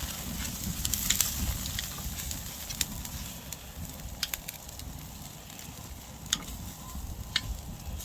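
Oak-wood campfire crackling, with sharp pops every second or so, over a low rumble of wind on the microphone.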